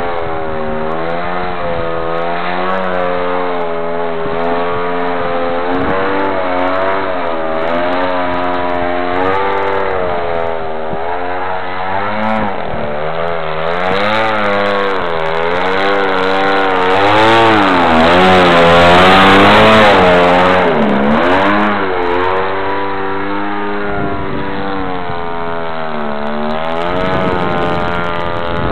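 A Funtana Pro RC aerobatic plane's motor and propeller run with a pitch that keeps rising and falling as the throttle changes and the plane passes. It is loudest around the middle, while the plane hangs nose-up in a torque-roll hover close by.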